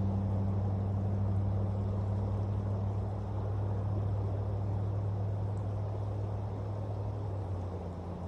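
A motor engine running steadily with a low hum, its pitch shifting slightly lower near the end.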